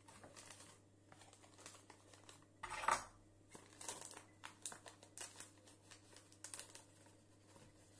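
Cardboard box of cocoa powder handled and tipped over a plastic mixing bowl: faint rustling with many light taps and clicks, and one louder rustle about three seconds in.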